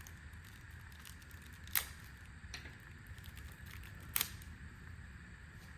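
Two sharp clicks about two and a half seconds apart, with a few fainter ticks, from small chainsaw engine parts (the new piston and its rings) being handled, over a low steady hum.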